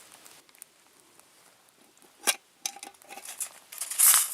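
Light clicks and clinks of camp cooking gear, a small pot and utensils being handled, with a short, louder rustling hiss near the end.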